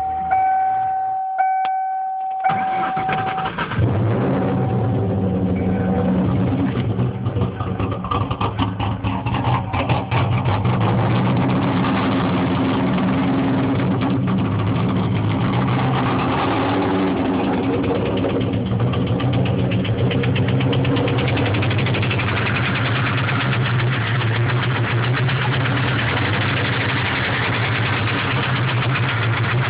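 A steady electronic warning tone, then a 1996 Mustang Cobra's V8 with stage 2 cams cranks, catches about three to four seconds in, and idles with a repeated knock, which the owner takes for rod knock.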